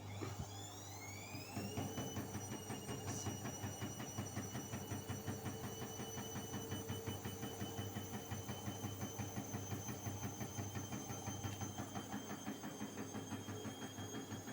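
Bosch Series 4 washing machine's motor and drum in the final spin: a whine that rises in pitch over the first two seconds as the drum speeds up, then holds steady with a rapid regular pulsing. The spin levels off well short of its rated 1000 rpm, which the owner puts at about 600.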